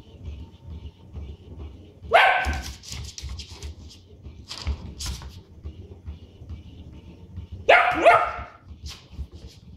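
Small dog barking in play at a ball lost under a sofa: one sharp bark about two seconds in, then two quick barks near the end.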